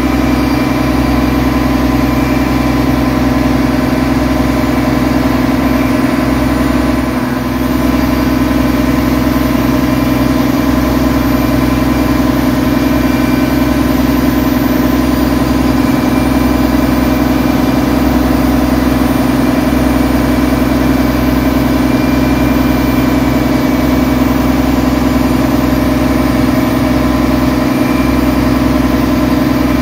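A passenger boat's engine running steadily while the boat is underway, heard from on board as a loud, even drone.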